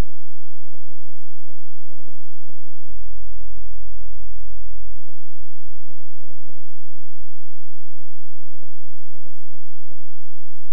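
A steady low hum with many irregular dull thumps, and a strong deep throb for about two seconds starting about three seconds in.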